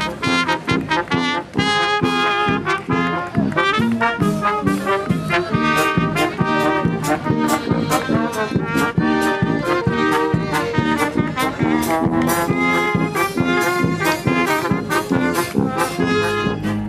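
Upbeat brass-led music with a quick, steady beat.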